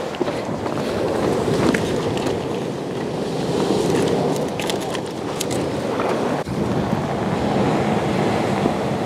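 Surf breaking against a rocky shore, with wind buffeting the microphone: a steady, dense rush of noise with a few faint ticks.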